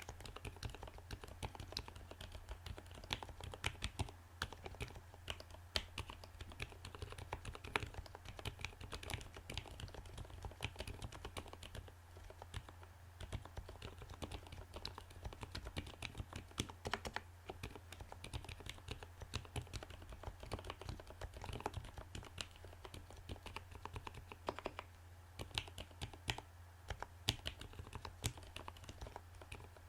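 Continuous typing on a Gothic70 mechanical keyboard with Gateron Black Ink linear switches, lubed with Krytox 205g0 and filmed: a steady, uneven stream of keystrokes and key bottom-outs.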